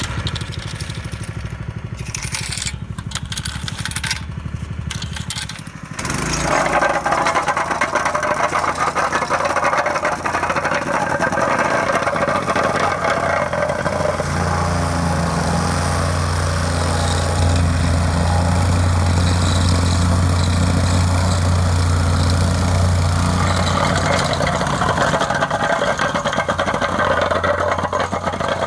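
Engine-driven asphalt compactor running while it compacts a fresh hot-asphalt patch. It is quieter for about the first six seconds, then jumps louder and runs steadily.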